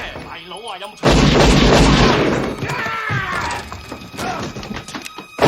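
Heavy gunfire in a film shootout: a loud blast about a second in, with a deep boom and a crashing tail that dies away over a second or two, then a second blast near the end.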